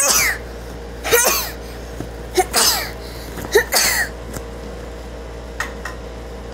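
A boy doing loud fake sneezes, about four in a row a little over a second apart. Each is a sharp, breathy burst with a falling whistly tail. Then they stop.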